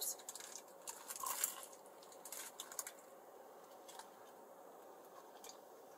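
Chewing a mouthful of Cuban sandwich on crusty bread: faint crunches and wet mouth sounds, busiest in the first three seconds, then quieter.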